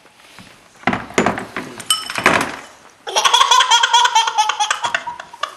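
Small clicks and rattles of dry dog food being handled on a feeding mat, then about three seconds in a toddler's high-pitched, rhythmic laughter for about two seconds.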